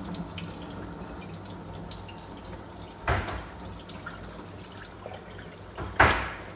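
Water collected in a dehumidifier's tank being poured out into a sink, a steady splashing pour. There are two sharp knocks, one about three seconds in and a louder one near the end.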